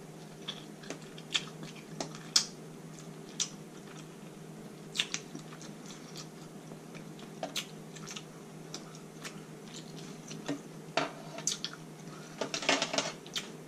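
Close-miked eating sounds of sauce-dipped king crab meat: wet chewing and lip smacks, heard as scattered short clicks. A quicker cluster of clicks near the end comes as more meat is pulled from the shell.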